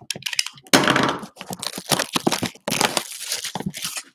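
A Panini Select football blaster box being torn open by hand: a run of sharp crackling, crinkling and tearing of the cardboard and wrapping, starting about a second in.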